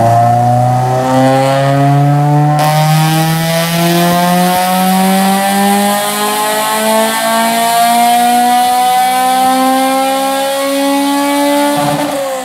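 Acura RSX's K20 four-cylinder engine in a full-throttle pull on a chassis dyno. The engine note climbs steadily in pitch for about twelve seconds, then drops off near the end as the throttle is lifted.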